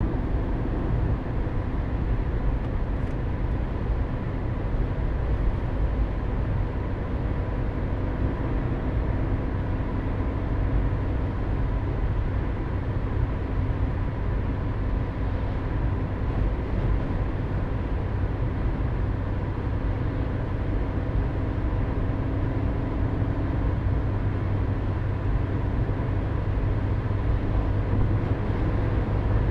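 Car driving at a steady speed: an even, low rumble of engine and road noise with no change in speed.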